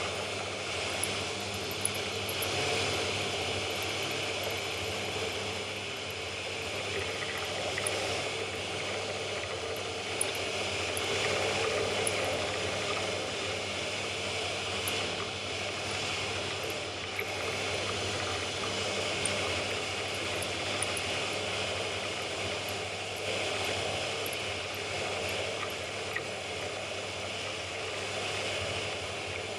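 Pillar drill running steadily while an end mill cuts a Woodruff key slot into a metal shaft held in a machine vice, with a few small ticks from the cut.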